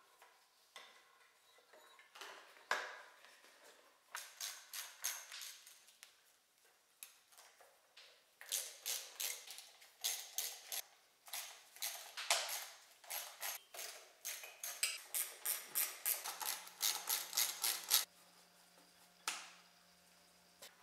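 Hand tools working on metal engine parts: a quick, uneven run of sharp clicks and knocks, sparse at first and then busy for about ten seconds before stopping, with a faint steady hum coming in near the end.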